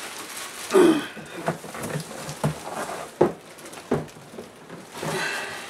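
Styrofoam packing pieces and the cardboard box being handled, with scattered knocks and scrapes.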